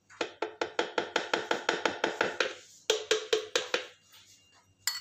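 Steel spoon tapping quickly against a plastic blender jar to knock curd off it: about eight sharp knocks a second for some two seconds, a short pause, then a briefer run of taps.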